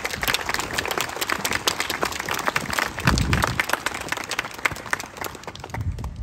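A small crowd applauding, the clapping dying away near the end.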